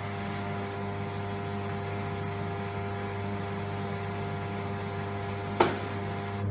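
ZDS Plug&GO electronic pump's single-phase water-cooled motor running with a steady hum. A sharp click comes about five and a half seconds in, and the hum cuts off near the end as the pump stops on its built-in pressure switch.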